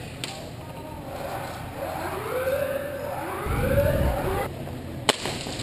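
A wailing siren rising and falling in pitch twice, with a low rumble under the second wail. Near the end there is a single sharp crack.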